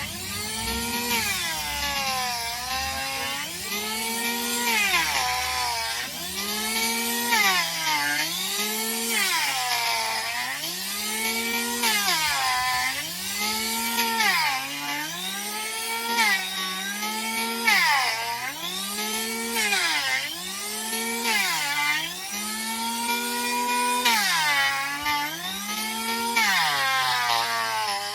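Handheld electric power tool grinding down a donkey's hoof, its motor whine repeatedly dropping in pitch as it bites into the horn and speeding back up when eased off, about every second and a half, over a harsh grinding rasp.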